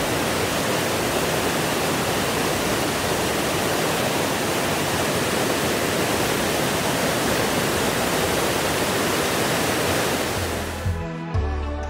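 Steady rushing of river rapids, an even hiss of moving water. About ten and a half seconds in it cuts off and background music with a low bass line begins.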